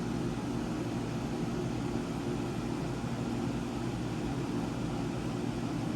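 Steady hum and hiss of a room air conditioner running, unchanging throughout.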